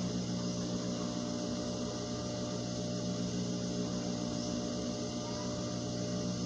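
Steady low electrical hum with an even background hiss.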